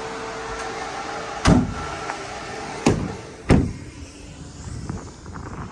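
Refrigerated van's cargo doors being shut: three bangs, about a second and a half in, near three seconds and again half a second later. A steady hum from the fridge unit cuts off at the first bang.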